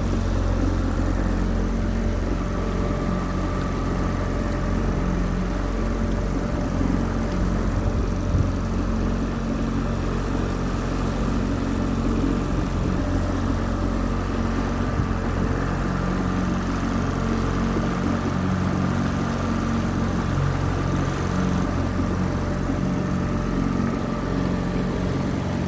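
Outboard motor of a 14-foot john boat running steadily at an even speed while under way.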